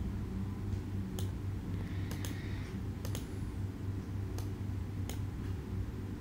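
About five scattered single clicks from a computer mouse and keyboard, over a steady low hum of room noise.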